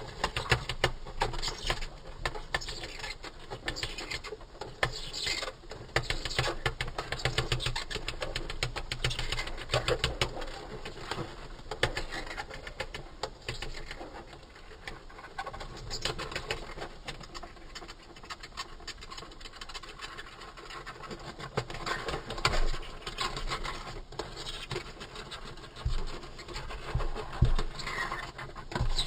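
Female death's-head hawkmoth (Acherontia atropos) beating her wings, a rapid fluttering rattle that comes and goes in spells, with a few louder thumps near the end.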